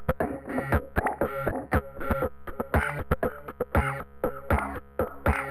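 Instrumental hip hop beat: a steady, repeating drum pattern over a bass line and sustained pitched chords, with no vocals.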